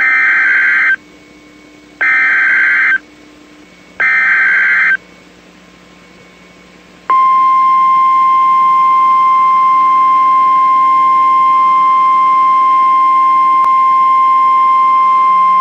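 NOAA Weather Radio emergency alert signal: three bursts of warbling SAME digital data tones, each about a second long and a second apart, then a steady single-pitched 1050 Hz warning alarm tone that starts about seven seconds in. This is the header and attention tone that go out ahead of a tornado warning.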